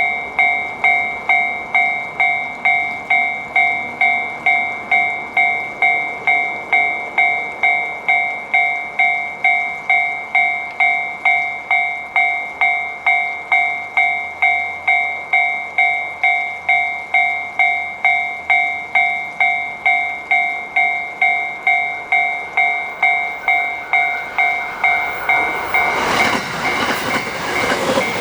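Japanese railroad crossing warning bell ringing its steady "kan-kan" alarm, about two strikes a second. Near the end a train arrives and rumbles through the crossing, drowning the bell.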